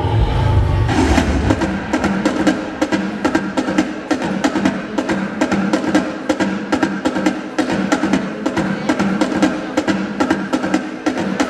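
Music driven by fast percussion: rapid, evenly repeating drum strikes, several a second, over sustained pitched notes. A deep bass part drops out about a second in.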